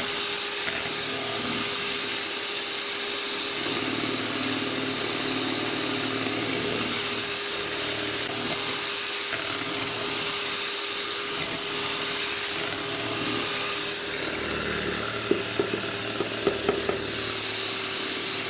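Electric hand mixer running steadily, its beaters whisking cake batter in a glass bowl, with a steady motor hum. A few short clicks near the end.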